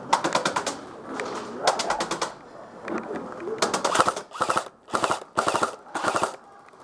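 Airsoft rifles firing on full auto in several short bursts of rapid, evenly spaced cracks. The bursts come closer together over the last three seconds.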